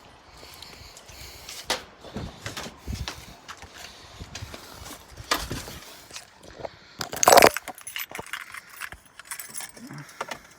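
Keys jangling among scattered knocks and clicks from handling, with one louder clunk about seven seconds in.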